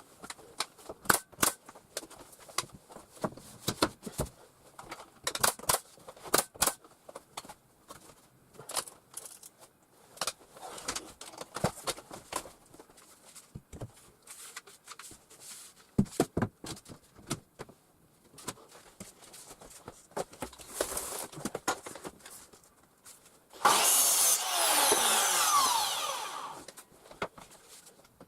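Irregular sharp knocks and clicks of woodwork during ceiling lining. Then, near the end, a power tool runs loudly for about three seconds, its pitch sliding downward.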